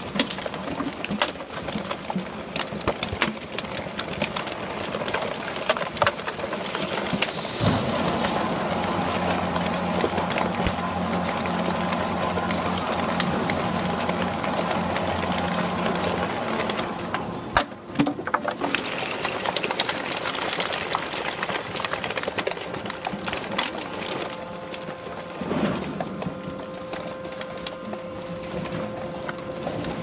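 Horizontal baler at work on PET bottles: a steady machine hum joins about eight seconds in and dips briefly midway, over constant crackling and popping of plastic bottles being crushed in the chamber.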